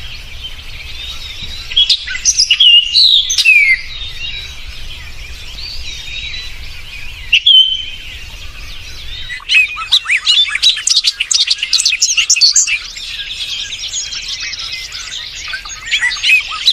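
Several small birds chirping and singing, with a few loud calls about two seconds in and a dense run of quick, high chirps from about halfway through.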